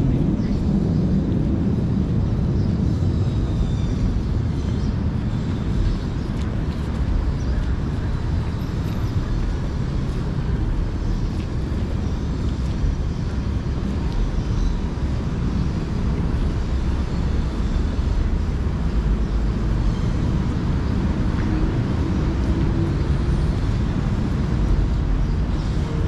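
Wind buffeting the microphone in a steady low rumble, with traffic noise underneath.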